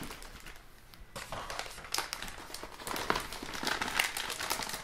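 Motherboard packaging being handled: a cardboard box and the board's silver anti-static bag rustling, with scattered light taps and clicks from about a second in.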